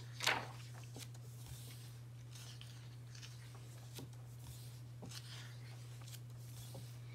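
Pages of a paperback book being handled and turned by hand: soft paper rustles with a few faint taps, over a steady low electrical hum.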